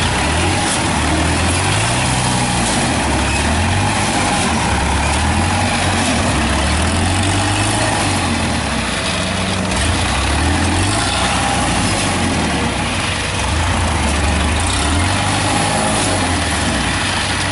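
Heavy diesel farm machinery engines running loud and steady, their revs rising and falling again and again while a machine stuck in deep paddy mud is being pulled out.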